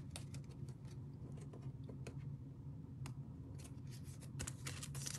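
Faint, irregular clicks and scrapes of football trading cards being handled and sorted, over a steady low hum.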